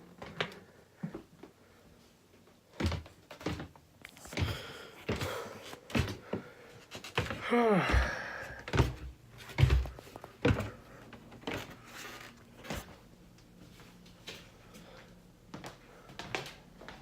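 Scattered knocks and thumps in a small room, about a dozen, with one short sound falling steeply in pitch about seven and a half seconds in.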